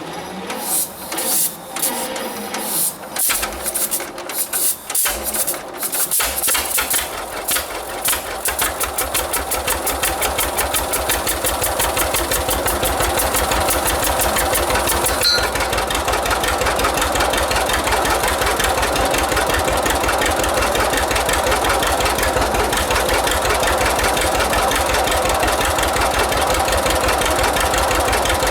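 1946 John Deere AR two-cylinder tractor engine being started with its decompression valves open: it turns over and fires unevenly for several seconds, catches about six seconds in, and then runs with a fast, even beat.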